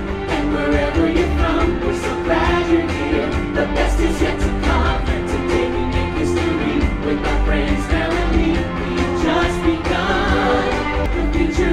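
Stage-show song with singing over a steady bass line, played through the show's sound system.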